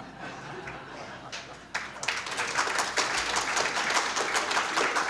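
Audience applauding: scattered claps that swell into full, dense applause about two seconds in.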